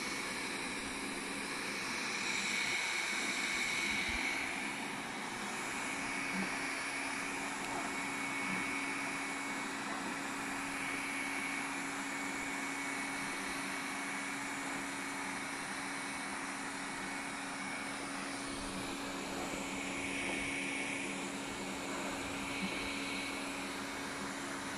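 Xiaomi Mijia 1C robot vacuum-mop running steadily while cleaning, a constant motor hum with a fan whine that swells a little a couple of times.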